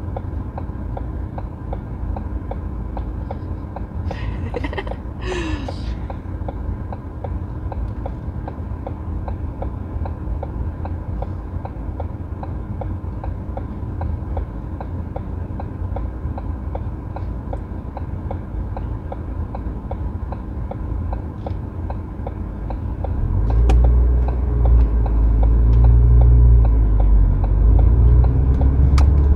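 Inside a car's cabin: a steady engine and road rumble with the indicator ticking evenly. About 23 seconds in, a much louder, deeper rumble swells up and holds.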